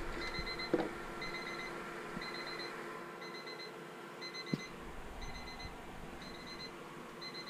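Electronic temperature alarm of a weather-station display beeping in groups of four quick beeps, about once a second: it signals that the RV refrigerator has dropped to about 32 degrees, too cold.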